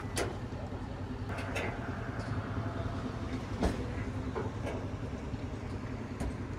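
A vehicle engine idling steadily, a low rumble, with a few sharp clicks about a second apart early on and one more in the middle.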